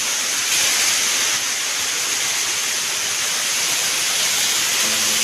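Steady, loud rush of falling water from a waterfall. Background music with held notes starts faintly just before the end.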